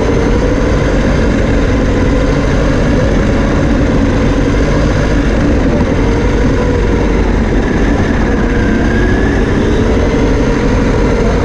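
Small electric RC car heard from a camera mounted on it while it races: a motor whine that rises and falls in pitch with the car's speed, over a loud, steady rumble of the running car.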